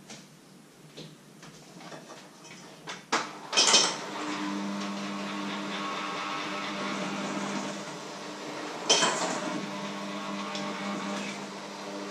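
Handheld electric mixer switched on after a few clicks and knocks, then its motor runs with a steady hum as it beats in a bowl, with a sharp knock about nine seconds in.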